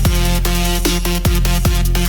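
Instrumental electronic dance music with heavy bass, sustained synth chords and a driving drum beat with pitch-dropping kick drums.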